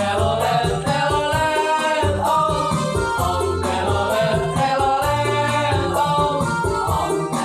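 A song playing: singing voices over instrumental backing with a steady bass line.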